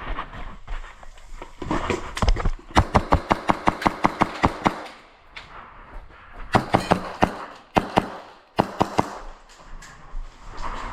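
Airsoft guns firing rapid strings of sharp shots, about eight a second for some two seconds, then a few shorter bursts and single shots.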